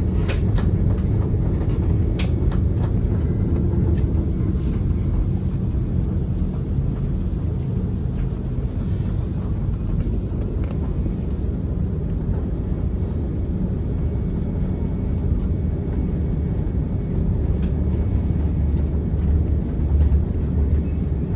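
Airliner cabin rumble on the ground just after landing: a steady low rumble of the aircraft's wheels and engines heard from inside the cabin, with a few light rattles in the first couple of seconds.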